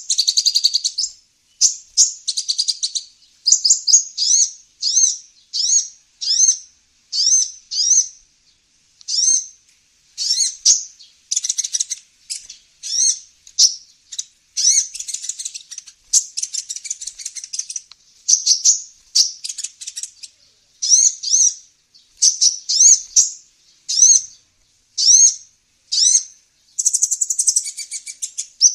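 Kolibri ninja sunbird call played as a lure recording: short, high, chirping phrases of quick up-and-down sweeps, repeated about once a second.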